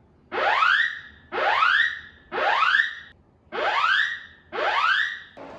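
Building fire alarm's evacuation signal: five rising whoop tones, about one a second, each sweeping up in pitch and holding briefly at the top. It sounds right after an automated voice announces a fire and calls for evacuation.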